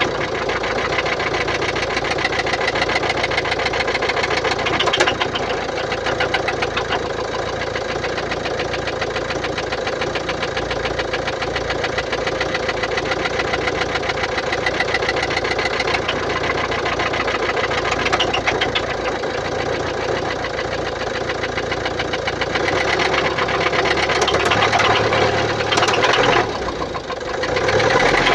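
Mercedes-Benz Vito 639's 1.6-litre OM622 diesel engine running at idle with a steady, rapid clatter, which the owner suspects comes from defective hydraulic lifters. The sound dips briefly and picks up again near the end.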